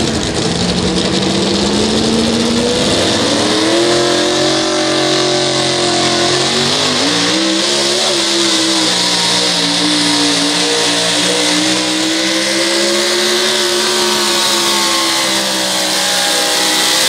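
A modified four-wheel-drive pulling truck's engine revs up over the first few seconds, then holds at high revs with small rises and dips as it pulls the weight sled down the track.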